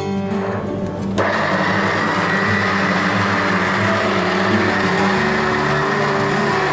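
Electric mixer grinder with a stainless-steel jar switched on about a second in, its motor running at full speed with a steady high whine.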